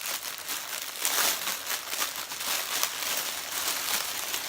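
Packaging crinkling and rustling as a wrapped clothing item is handled and unwrapped, loudest about a second in.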